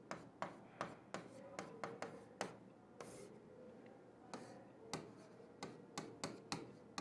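Pen writing by hand on a smart-board screen: faint, irregular taps and scratches, roughly two a second, with a short pause a little after the middle.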